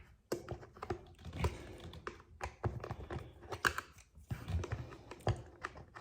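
Irregular clicks and taps of hard plastic, as parts of a Dyson V6 cordless vacuum's cyclone assembly are handled and worked loose, with a few dull knocks.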